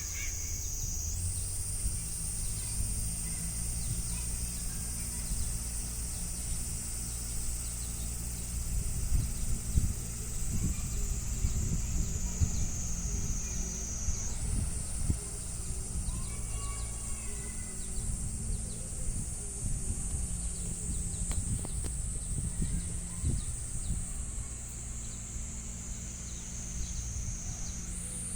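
John Deere tractor engine running steadily, with a high thin whine above it that jumps up in pitch twice and slowly sinks back.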